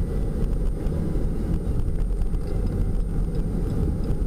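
A steady low rumble of road and engine noise inside the cabin of a van driving along a road.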